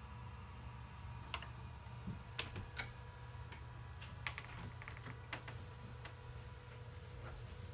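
A dozen or so light, irregular clicks and taps, over a steady low hum with a faint high tone.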